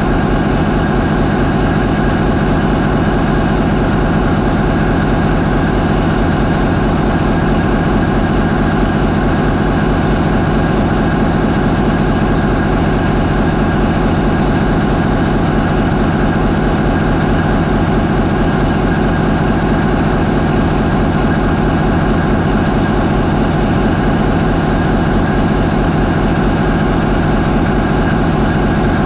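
MAN 20V28/33D STC twenty-cylinder medium-speed marine diesel engine running steadily at 550 RPM, a loud, even, deep drone.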